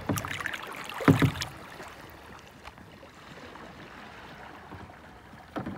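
Kayak paddle strokes splashing in the water: a couple of strong splashes in the first second and a half and another near the end, with water lapping around the hull between them.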